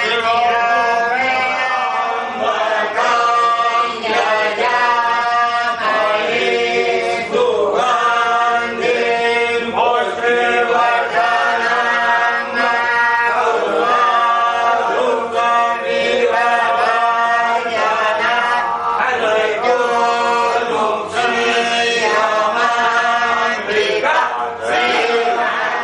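Voices chanting a Hindu devotional hymn in a continuous melodic chant, moving from note to note every second or so.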